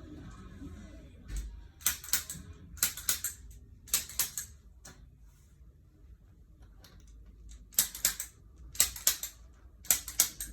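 Activator adjusting instrument firing: sharp spring-loaded clicks in quick groups of two or three, about a second apart, with a pause of a couple of seconds mid-way. Each click is one low-force thrust into the knee, ankle and foot joints.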